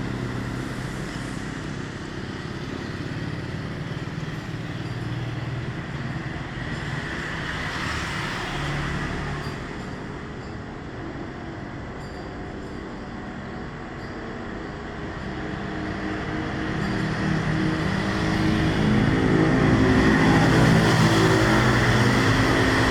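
Road traffic: motor vehicles passing, one growing louder over the last few seconds.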